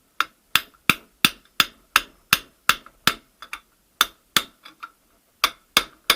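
A hammer striking repeatedly to drive the inner race of a front bearing onto a VAZ manual gearbox shaft. The blows are sharp and even, about three a second, with a brief pause near the end.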